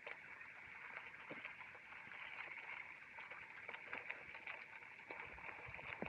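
Bicycle riding on a wet gravel track in rain: a steady hiss of tyres and rain, full of small ticks and patters.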